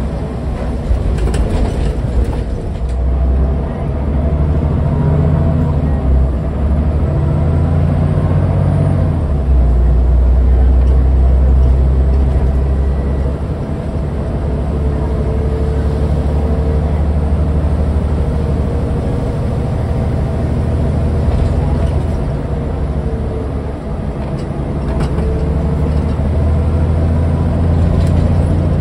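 Scania N94UD double-decker bus heard from inside the lower deck while in service: the 9-litre five-cylinder diesel runs with a steady low drone that swells and eases as the bus pulls and slows. Occasional knocks and rattles come from the bodywork.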